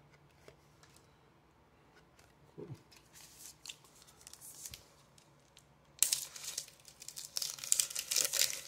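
A foil baseball-card pack wrapper being torn open and crinkled, a loud run of crackling and rustling that starts about six seconds in, after some softer handling of cards and wrappers.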